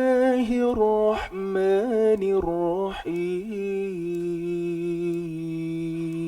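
A man's solo voice chanting Quran recitation in the Kurdi maqam: quick ornamented melodic turns for the first few seconds, then one long held note from about four seconds in.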